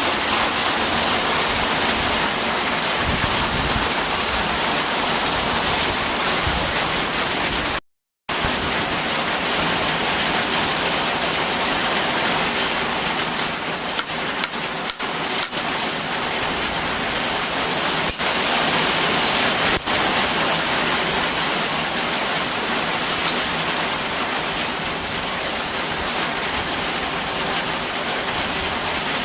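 Heavy rain falling steadily on a corrugated zinc roof, a dense even hiss with a few sharper drip ticks. The sound cuts out completely for a split second about eight seconds in.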